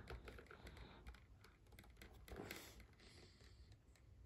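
Faint, scattered light clicks and taps of small plastic toy playset pieces being handled.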